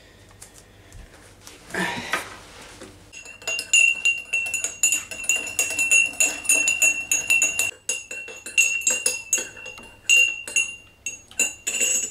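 Metal teaspoon stirring in a porcelain mug, clinking quickly and repeatedly against the sides with a ringing tone. The clinking starts about three seconds in, after a brief soft noise, and pauses briefly about two-thirds of the way through.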